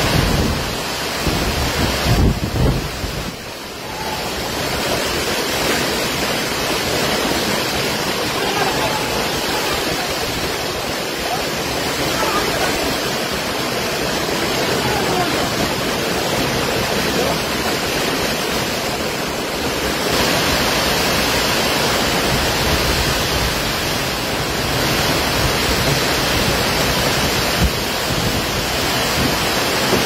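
Torrential rain driven by strong wind: a loud, steady rush of downpour.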